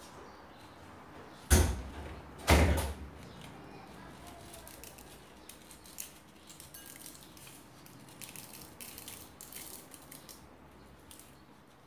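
Scissors cutting the neck of a rubber balloon, with two loud snaps about a second apart. Later, many faint small clicks and crackles as small beads are squeezed out of the balloon into a bowl of slime.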